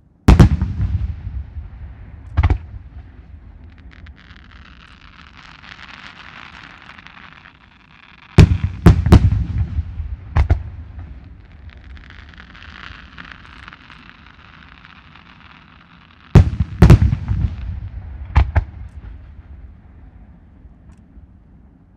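Aerial firework shells bursting in three volleys of loud booms about eight seconds apart, each boom trailing off over a second or two, with a softer hiss between the volleys.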